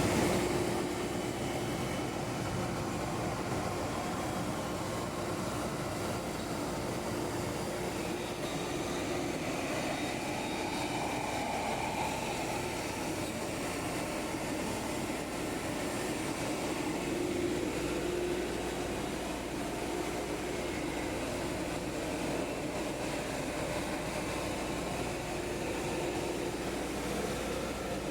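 FR3020 desktop CNC router running, its spindle cutting a rectangle: a steady machine hum with a held tone.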